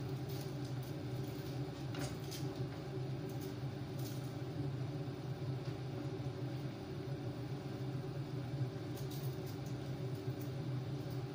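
Kitchen range hood fan running with a steady low hum, with a few faint clicks of kitchen handling.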